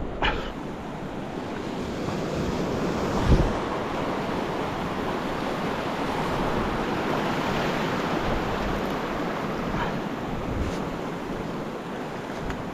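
Ocean surf washing on a rocky shore, with wind buffeting the microphone. A single short thump about three seconds in.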